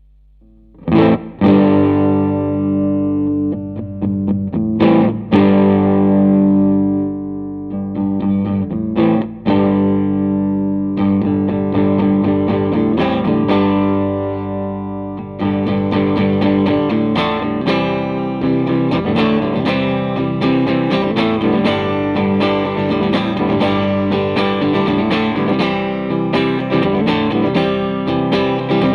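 Fender Stratocaster electric guitar played through a Line 6 Helix amp and cab model. Ringing chords start about a second in, and the playing turns busier and continuous about halfway through.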